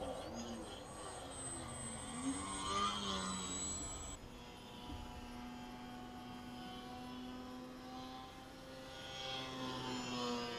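The brushless electric motor and propeller of a small aerobatic RC plane (E-flite Park 400) whining. Its pitch rises and falls with throttle at first, the sound changes abruptly about four seconds in, and it then holds a steadier tone.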